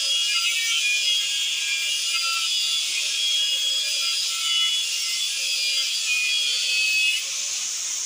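Angle grinder with a cut-off disc cutting through a refrigerator compressor's welded steel shell: a steady, high grinding screech with wavering squeals. About seven seconds in the disc comes off the metal and the sound drops to the grinder spinning free.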